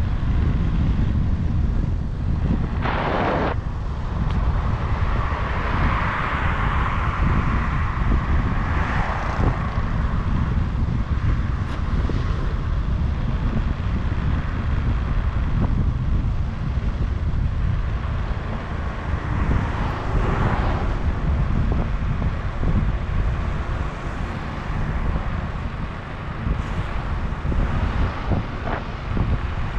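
Wind buffeting the microphone outdoors, a steady low rumble, with a few brief louder noises.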